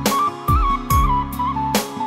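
Background music: a flute-like melody with ornamented turns over a drum beat with deep kicks, cymbals and bass.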